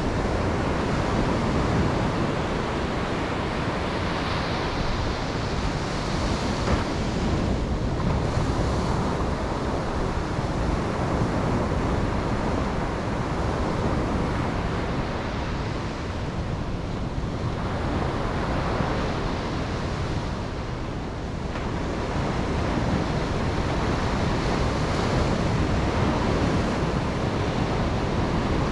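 Ocean waves breaking and washing on a beach, a continuous surf rush that swells and eases slightly.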